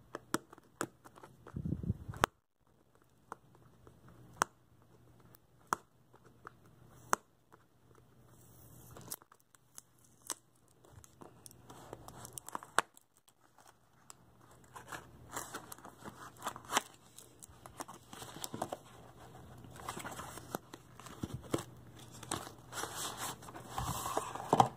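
Cardboard earbud box being opened by hand: fingernails pick at the flap in scattered small clicks, then paper and cardboard rustle and scrape as the box slides open, growing louder toward the end.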